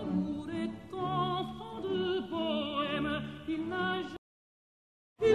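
Background music: operatic singing with wide vibrato over orchestral accompaniment. It cuts off abruptly about four seconds in, leaving a second of dead silence, and starts again right at the end.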